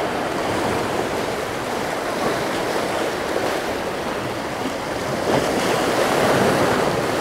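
Sea waves washing against the rocks of a jetty: a steady rushing wash that swells again about five to six seconds in.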